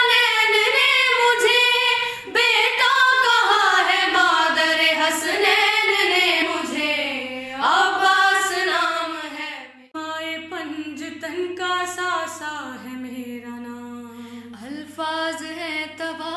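Girls' voices singing an unaccompanied Urdu manqabat in long, drawn-out melodic phrases. About ten seconds in, the singing falls away and goes on more softly.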